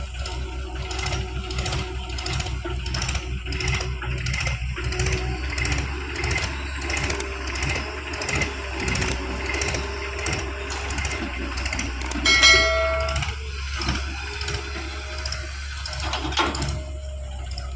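Heavy diesel earthmoving machinery running steadily under load, with a low drone and light regular knocking about once a second. A short horn-like beep sounds about twelve seconds in.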